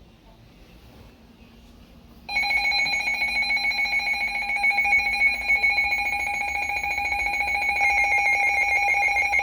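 Weather alert radio alarm going off for a severe thunderstorm warning. A loud electronic alarm tone starts abruptly about two seconds in and goes on steadily, with several fixed pitches and a fast, buzzing pulse.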